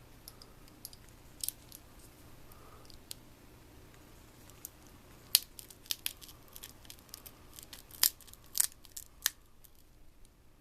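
Small plastic and film parts of a Palm Pilot PDA being pried and peeled apart by hand: scattered light clicks and crackles, with a few sharper snaps a little past halfway and again later on.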